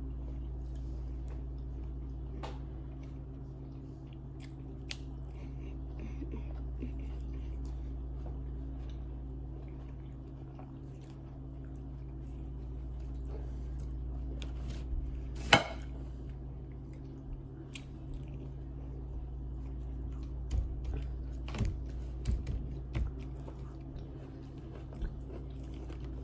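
A person chewing and eating fufu, with small mouth clicks, over a steady low hum. One sharp click a little past halfway is the loudest sound, and a few soft knocks come later.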